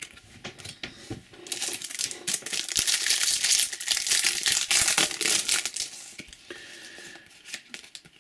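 Foil wrapper of a Topps Match Attax trading-card pack crinkling as it is handled and crumpled, loudest for a few seconds in the middle. A few light clicks of cards being handled come before it.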